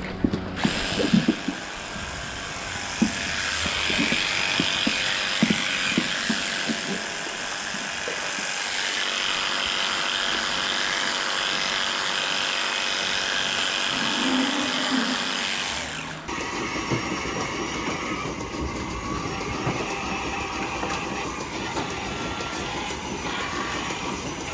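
Electric hair clippers running steadily as they trim a cow's tail switch, with a few knocks near the start. About two-thirds of the way through it cuts off abruptly to the steady clatter of milking-parlour machinery.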